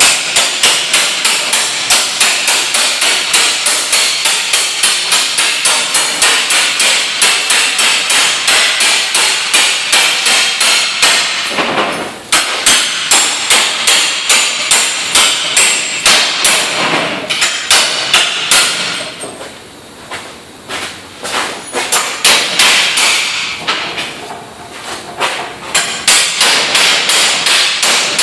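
Hammer striking steel plate in a rapid, even run of sharp metallic blows, about three a second, with a few short pauses.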